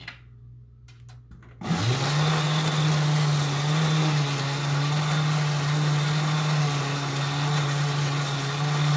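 A few light clicks, then about two seconds in the small battery-powered motor and tin gearing of a 1950s–60s W-Toys candy vending machine bank start up and run with a steady hum, working the clown mechanism that delivers candy down the chute.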